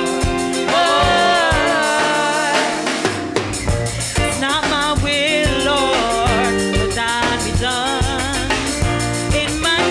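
Live gospel praise singing: female voices with vibrato over a drum kit and electric bass. A short break about three seconds in, after which the drums and bass play fuller.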